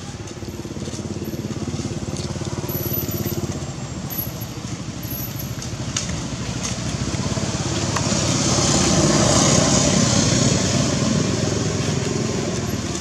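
Motor vehicle engine running, growing louder to a peak about nine or ten seconds in, then fading as it goes past.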